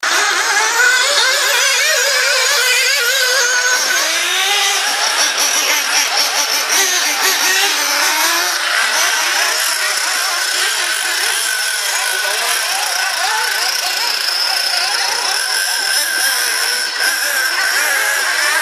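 Several radio-controlled off-road buggies' small high-revving engines, overlapping and constantly rising and falling in pitch as they accelerate and ease off around the track.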